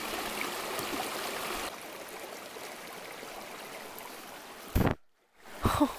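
Creek water running over rocks, a steady rushing that drops a little in level about two seconds in. Near the end there is a short loud thump, a moment of dead silence, and then another brief sound.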